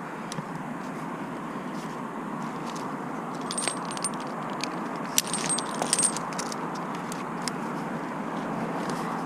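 Steady background noise with two short spells of light metallic clinking, about three and a half seconds and five seconds in.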